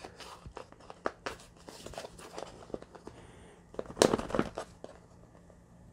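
Cardboard smartphone retail box being opened by hand: a run of small clicks, rustles and scrapes of the cardboard, with a louder scrape and rustle of the lid coming off about four seconds in.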